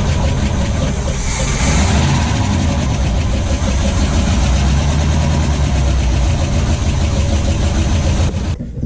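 Inboard 350 V8 marine engine running steadily just after being started, test-fired with its new exhaust pipes. The sound cuts off suddenly near the end.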